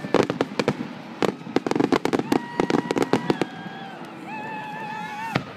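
Aerial fireworks going off: a rapid string of sharp bangs and crackles for about three and a half seconds, then a steady high whistle that ends in a bang near the end.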